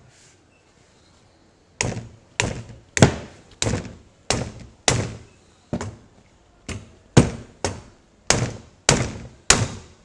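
Rubber mallet striking a loaded speargun handle held at 60 kg of tension: about a dozen sharp knocks, starting about two seconds in and coming a little under two a second. The trigger mechanism holds through the blows without misfiring.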